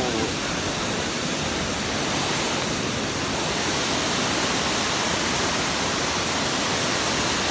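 Waterfall: water pouring over a wide rock ledge into a pool, a steady, even rush of noise.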